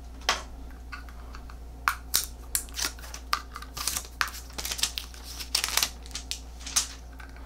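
Packaging of a small SD card reader being handled and opened: a run of irregular sharp clicks and rustles, one near the start and then many from about two seconds in.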